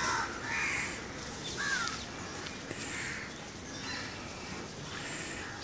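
Several short bird calls spaced about a second apart, over steady outdoor background noise.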